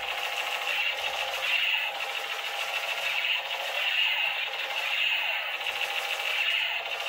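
Battery-powered light-up toy machine gun playing its electronic firing sound effect through its small speaker: a tinny, continuous rattle that swells in a repeating loop about every three-quarters of a second.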